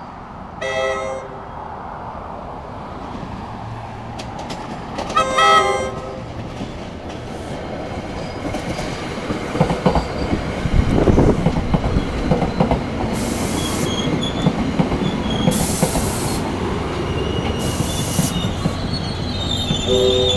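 NJ Transit passenger train sounding its horn twice as it approaches, a short blast about a second in and a longer one about five seconds in. Then the train passes close by, its wheels rumbling and clacking over the rail joints, with several short high hissing squeals in the second half.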